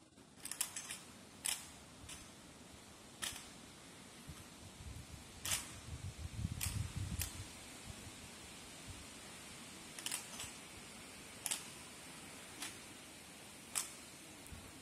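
Sharp, separate clacks and knocks from an honor guard's rifle drill and boots, coming at irregular intervals a second or two apart. A low rumble sits in the middle.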